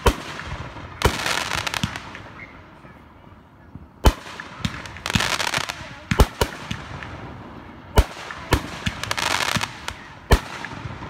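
Aerial firework shells launching and bursting: about nine sharp booms, some in quick pairs. Several are followed by a second or so of crackling hiss as the stars burn out.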